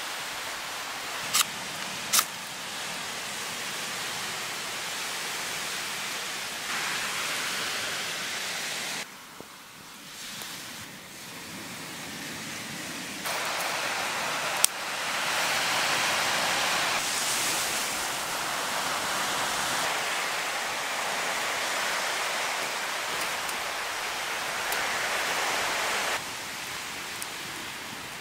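Steady outdoor hiss, broken into several edited stretches that start and stop abruptly. Two sharp clicks come about a second and a half and two seconds in.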